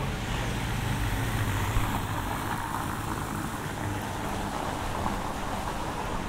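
Street traffic with a vehicle engine running close by; its low hum fades out about two seconds in, leaving a steady wash of traffic noise.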